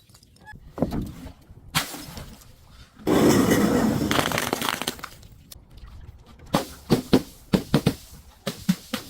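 Glass bottles being broken and crushed. There are a few sharp cracks, then about three seconds in a loud stretch of crunching and shattering glass that lasts around two seconds, then a quick run of sharp cracks and snaps near the end.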